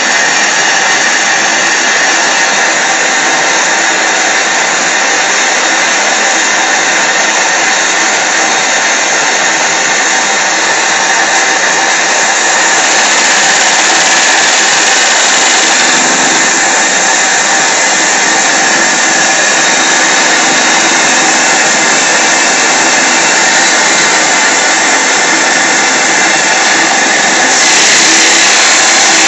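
PMR double-acting V-twin oscillating model steam engine, steamed by a Saito BT1L boiler, running fast: a loud, steady buzzing whir mixed with hiss. It grows a little louder about halfway through and again near the end, when the boiler's steam valve is opened further.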